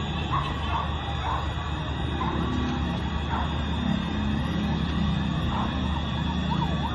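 Emergency vehicle sirens wailing over a steady din of street noise.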